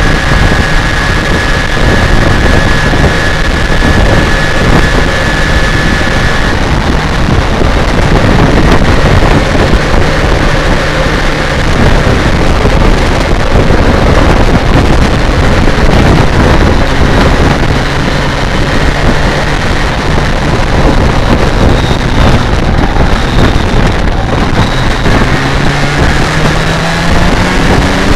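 BMW K1200R Sport's inline-four engine running at a steady cruise, half buried under heavy wind rush on the microphone. Near the end the engine note rises as the bike accelerates.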